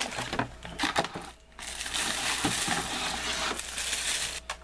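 A few sharp clicks and knocks of packaging being handled, then about three seconds of continuous crinkling of plastic wrapping that stops abruptly near the end.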